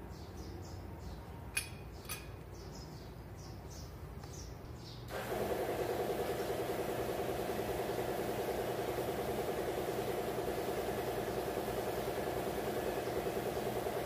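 Faint bird chirps and two light clicks, then about five seconds in a machine starts abruptly and runs steadily with a fast, even pulsing.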